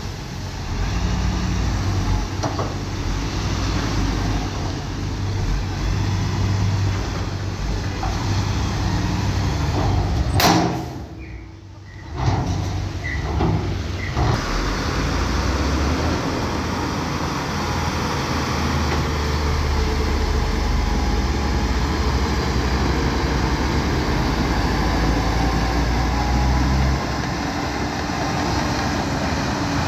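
Shantui DH bulldozer's diesel engine running steadily under work, with a brief drop in the sound about eleven seconds in before it picks up again.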